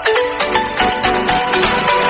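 Background music: an upbeat electronic track with a steady beat and bright melodic notes.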